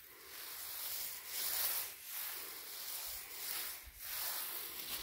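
Tall grass rustling as a hand sweeps through it, in several swelling brushing strokes.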